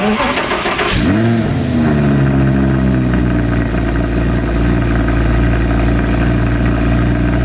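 Audi R8 V10 Spyder's 5.2-litre V10 cold-starting through its stock exhaust. About a second of starter cranking, then the engine catches, the revs rise briefly and drop back, and it settles into a steady, loud fast idle.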